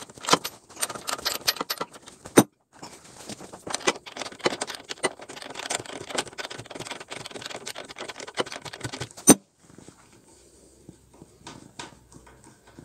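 Rapid metallic clicking and rattling of a 24 mm socket wrench working the rear axle nut of a Royal Enfield Bullet 500 loose, with a sharp metal knock about two seconds in and another at about nine seconds. After that only a few faint clicks as the nut is turned off by hand.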